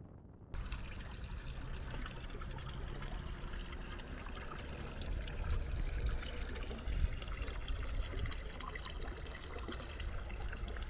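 Water trickling from the metal spout of a concrete roadside fountain into its trough, starting suddenly about half a second in, with a low rumble underneath.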